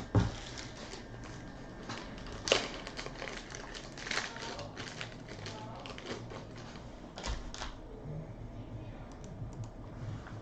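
Tabletop handling noise: a few scattered sharp clicks and light rustles over low room noise, with the loudest click near the start and another about two and a half seconds in.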